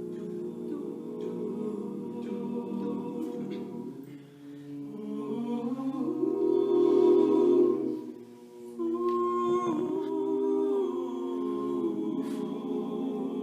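Male a cappella group singing held, wordless chords in close harmony. The chords swell to a peak about two-thirds of the way through, then briefly drop away before the harmony resumes.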